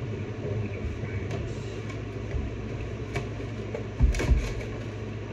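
Light clicks and knocks from an action figure's box and plastic packaging being handled, over a steady low room hum, with a louder knock about four seconds in.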